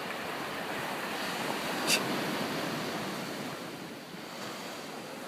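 Ocean surf washing onto the beach, a steady rush of breaking waves, with one brief sharp click about two seconds in.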